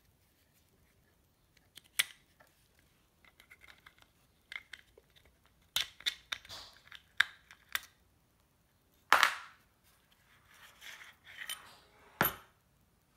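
Metal clicks, rattles and scrapes as the trigger pack of a Type 97 rifle is worked loose by hand, with no tools, and lifted out of the receiver. There is a sharp click about two seconds in and a run of clicks and rattles from about six to eight seconds. A louder scraping knock comes a little after nine seconds, and a last sharp click near the end.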